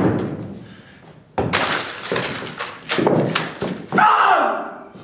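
Crashes and bangs of things being hurled about and furniture knocked over on a stage floor, in three sudden bursts about a second and a half, three and four seconds in.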